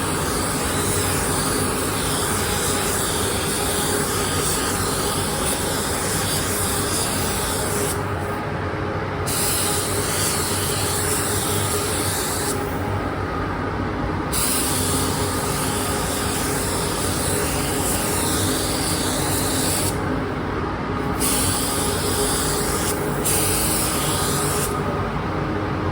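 Paint spray gun hissing as it lays down clear coat, in long passes of a few seconds each, with the hiss cutting off briefly between passes about four times. A steady lower hum runs underneath.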